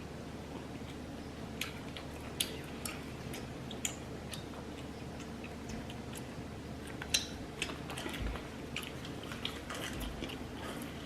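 Close-miked chewing of deep-fried king crab, with soft, irregular mouth clicks and small crunches scattered through.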